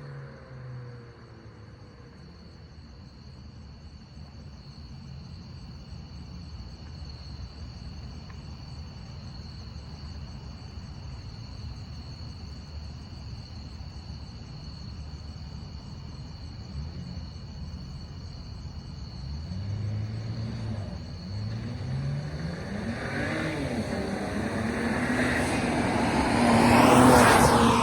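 BMW 335i's N54 twin-turbo inline-six engine, with an aftermarket charge pipe, intakes and blow-off valve. It runs steadily with a constant high whine, then revs rise and fall through several pulls from about two-thirds in, building to its loudest near the end with a rush of air.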